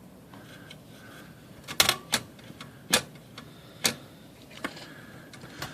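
A handful of sharp, separate mechanical clicks from a Royal KMM manual typewriter's mechanism, starting about two seconds in and coming roughly one a second.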